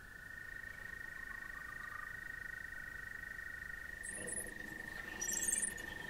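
Frogs trilling: two long, steady trills at slightly different pitches overlap, and the lower one stops about four seconds in. Faint high chirps come near the end.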